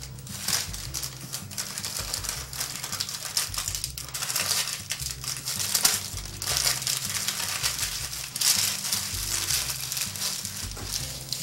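Wax paper crinkling and crackling as it is folded and rolled tightly around a breakfast burrito, in irregular handling noises throughout.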